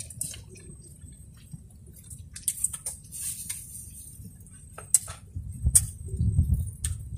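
Eating and food handling: small clicks, smacks and crinkles as grilled fish is picked apart by hand from a plastic-lined plate and eaten, over a steady low rumble. A few louder knocks and low thuds come near the end.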